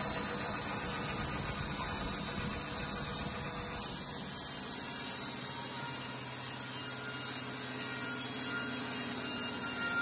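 Band sawmill running with a steady machine hum and a high hiss. It is a little louder with more low rumble at first, then settles slightly quieter about four to five seconds in.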